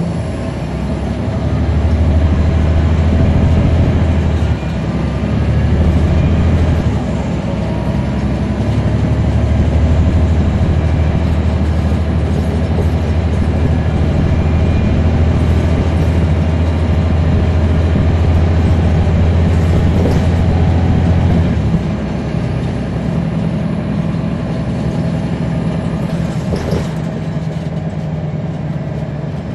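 Caterpillar C13 ACERT diesel engine of a NABI transit bus, heard from inside the bus, pulling under load. The engine note dips twice in the first several seconds, runs strong and steady, then eases off to a lower, quieter note about three-quarters of the way through.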